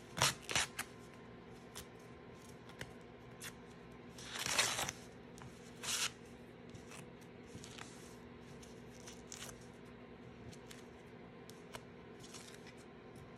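Tearaway embroidery stabilizer being ripped off the back of the stitched fabric: a couple of quick sharp tears at the start, one longer rip about four and a half seconds in and another at six seconds, then smaller, fainter tears and rustling.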